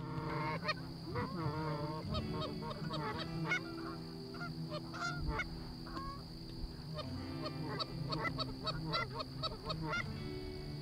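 Canada geese honking: many short, overlapping honks in quick succession, over a soft background music bed.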